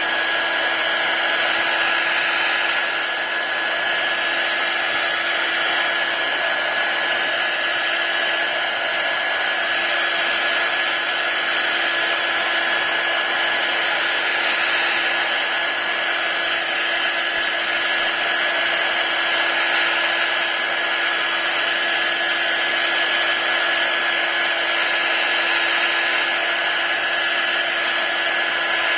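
Heat gun running steadily, its fan blowing with a constant high whine, heating the screen adhesive to loosen an iPad's glass.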